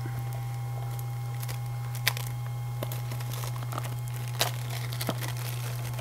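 Cellophane shrink-wrap being picked at and peeled off a Blu-ray case: scattered crinkles and crackles, with sharper snaps about two seconds in and again past four seconds, over a steady low hum.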